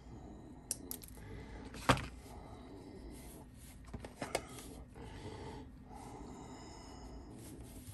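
Small hand-tool and handling sounds on a workbench: side cutters working at a resin model figure, with a sharp click about two seconds in and a lighter click a little after four seconds as a small clear plastic box is handled.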